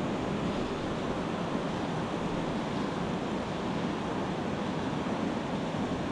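River water rushing over stones: a steady, even rush.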